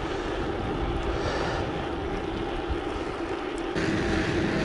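Wind rushing and buffeting over the microphone of a bicycle-mounted camera as a mountain bike rolls fast on fresh asphalt. Near the end the rush gets louder and a steady low hum joins in.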